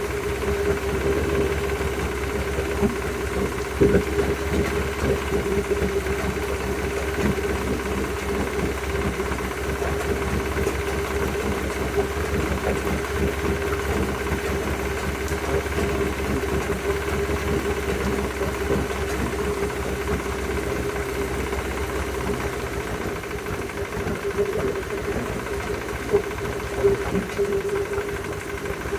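Yamaha F100 four-stroke outboard motor running with a steady hum and a rapid, even knocking, which the owner suspects may be rod knock. The deep low rumble drops away about two-thirds of the way through.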